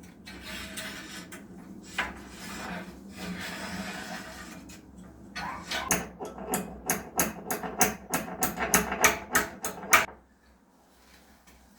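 Scraping and rubbing with a single sharp knock, then a fast run of rhythmic scraping strokes, about three a second, like a hand tool working wood. The strokes stop abruptly about ten seconds in.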